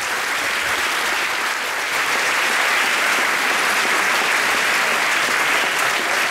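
Audience applauding: many people clapping steadily, swelling a little about two seconds in.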